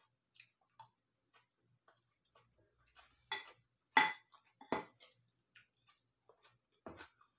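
A metal fork clinking and scraping against a salad bowl while eating, as a string of small scattered clicks with three louder clinks close together near the middle.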